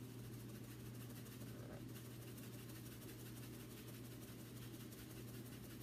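Faint room tone with a steady low hum and no distinct event.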